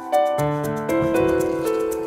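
Background music: held melodic notes that change every half-second or so, over a quick, steady ticking beat.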